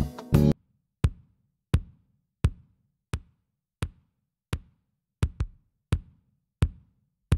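Kick drum soloed through the Eminence channel strip plugin, one short punchy hit about every 0.7 seconds with a quick double hit a little after five seconds. The full mix with guitar cuts off about half a second in, leaving the kick alone.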